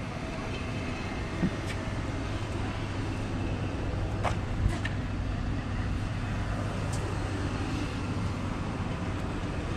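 A vehicle engine running steadily at idle: a constant low hum, with a few faint ticks now and then.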